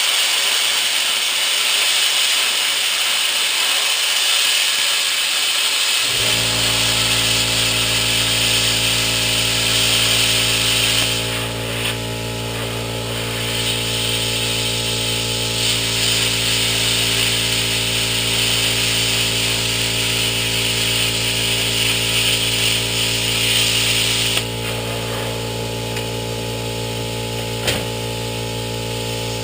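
Power tool working on sheet steel, a steady hissing grind that eases off briefly a few times. About six seconds in, a steady low motor hum comes in and runs on underneath it.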